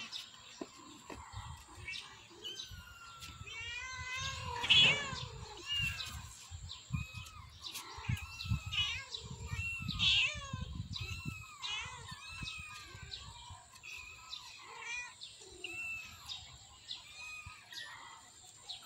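Small kittens mewing over and over in short, thin calls, with a louder, longer cat meow about five seconds in. Birds chirp faintly in the background.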